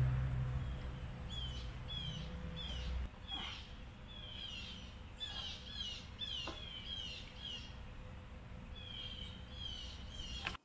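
Birds chirping over and over, short falling chirps in quick runs, with a few light knocks. A low rumble underneath fades out about three seconds in.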